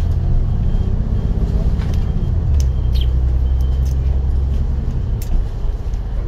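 Alexander Dennis Enviro 500 double-deck bus driving along, heard from inside the upper deck: a steady low engine drone that eases about five seconds in, with a few light rattles from the body.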